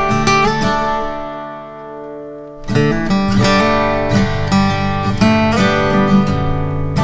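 Background music of acoustic guitar picking and strumming. A ringing chord fades away, and fuller strumming comes back in about three seconds in.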